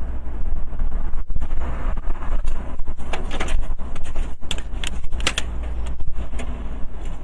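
Steady low road and wind rumble of a car driving at highway speed, picked up by a dashcam microphone. A quick, irregular run of sharp ticks and clicks comes through about three to five and a half seconds in.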